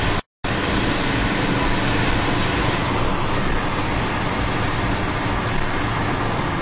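Steady road and wind noise inside a car cruising on a motorway. The sound cuts out completely for a moment just after the start.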